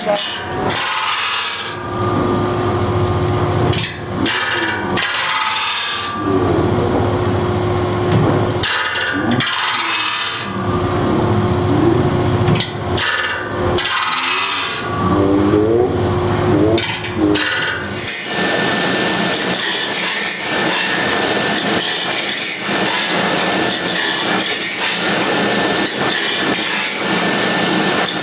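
The teeth of a cedar shingle head saw being sharpened, the stone rubbing and scraping against the steel in stop-start passes of a second or two each. About 18 s in the sound turns steadier and denser.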